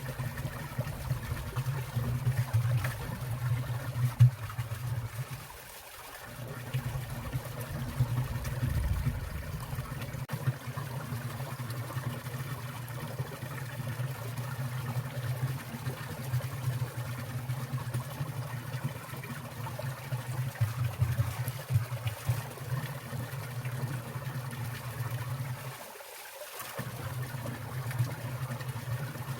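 Water of a winter mountain stream trickling and falling, a steady run of water with a low rumble that briefly drops away twice.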